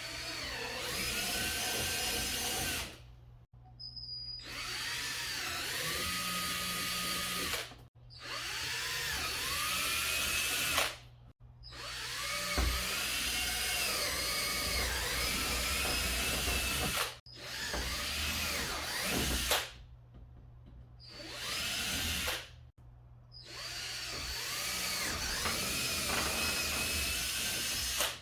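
Power drill boring mounting holes into a car's front bumper, in about seven runs of a few seconds each that stop abruptly, the motor's pitch rising and falling as the trigger and load vary.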